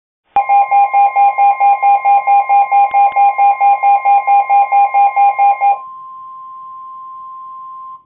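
A bank of weather-alert radios going off for a high wind warning: fast pulsing alarm beeps, about four to five a second, over a steady tone. The beeping stops near the end, leaving the steady weather-radio warning tone.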